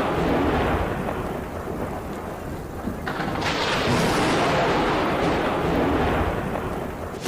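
Thunder rumbling over heavy rain, with a second roll swelling about three and a half seconds in.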